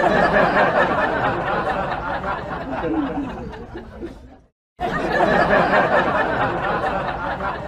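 Several people laughing at once. The laughter cuts out abruptly about four and a half seconds in and starts again a moment later.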